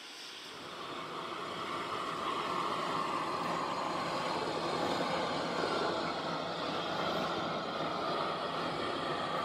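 Small narrow-gauge steam locomotive approaching slowly, a steady hiss of steam and running noise that swells over the first couple of seconds and then holds.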